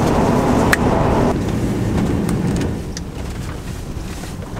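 Road and engine noise inside the cabin of a moving car, with a single sharp click about a second in. The noise drops to a quieter rumble about three seconds in.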